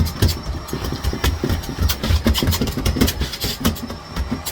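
Miele Blizzard CX1 vacuum cleaner running, with a rapid, irregular string of knocks and thumps as things are bumped and shoved.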